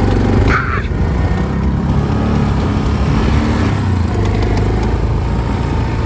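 Four-wheeler (ATV) engine running steadily as it carries a rider across the snow. There is a brief higher-pitched sound about half a second in.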